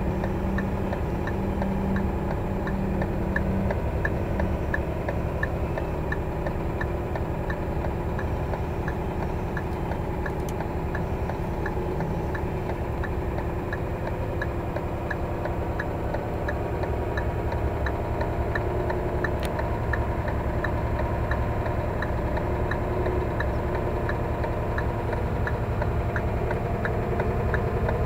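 Scania R620's V8 diesel engine running steadily as the truck drives, heard from inside the cab. A light, regular ticking goes on over it, about two to three ticks a second.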